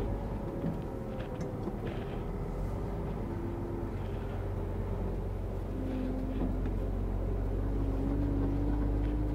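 Lorry engine running inside the cab while the truck drives slowly: a steady low drone, its note drifting and climbing slightly near the end.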